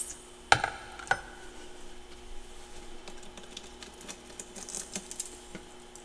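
Crisp small crunches and clicks of freshly eaten humidifier-made freezer frost being chewed, with two sharp clicks about half a second and a second in. A faint steady hum runs underneath.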